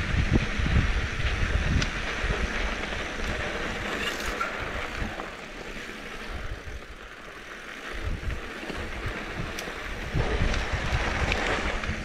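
A mountain bike rolling over a sandy dirt trail, tyres on loose dirt, with wind buffeting the microphone and a few sharp clicks and rattles from the bike or stones. It eases off a little past the middle, then picks up again.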